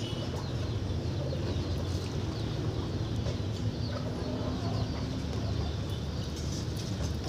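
Steady low rumble of outdoor background noise with birds calling faintly over it.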